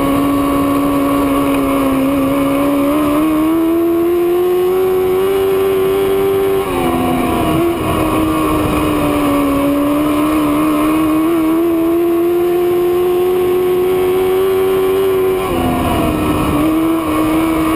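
Race car engine at full throttle, its pitch climbing slowly along the straights and dropping sharply twice as the driver lifts for the turns. The engine is down on power and lacks snap because its fuel pump is dying.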